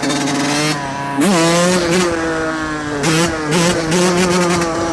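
Off-road motorcycle engine under throttle. Its pitch jumps up sharply just over a second in, then eases down with several quick dips and pick-ups as the throttle is worked.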